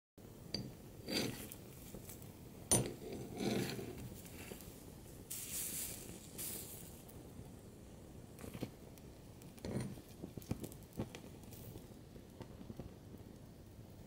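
Faint crackles, clicks and pops from a burning, melted plastic fidget cube, with a short spell of hissing about five seconds in.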